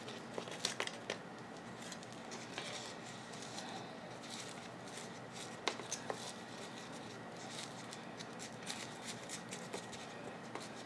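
Potting mix being handled and pressed around a plant in a small pot: quiet rustling and scraping of the soil with scattered light clicks and taps, the sharpest near the start and about six seconds in.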